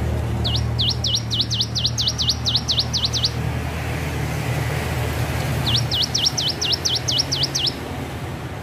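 Ciblek gunung, a prinia, singing two quick runs of sharp, repeated up-and-down notes, about four to five a second, the second run starting about five seconds after the first. A steady low hum runs underneath.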